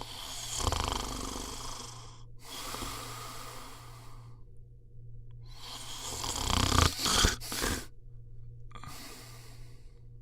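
A sleeping person snoring: long, rough breaths of about two seconds each with short pauses between them, the loudest and most rattling snore coming about two-thirds of the way in.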